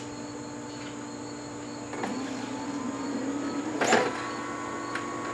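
Okidata Pacemark 3410 9-pin dot matrix printer initialising: its fan runs steadily, and about two seconds in the carriage motor drives the printhead back across with a slowly rising whine. A clack comes about four seconds in, and the motor stops near the end as the head reaches its home position.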